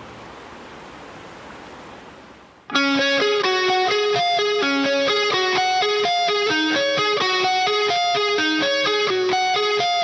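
Steady rushing of creek water for the first couple of seconds. About three seconds in it is cut off by loud guitar music, a picked melody of quick repeating notes, which carries on from there.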